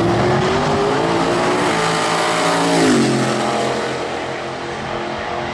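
Boosted Mustang drag car launching and accelerating hard, engine pitch climbing, then dropping sharply on a gear change about three seconds in before pulling on again.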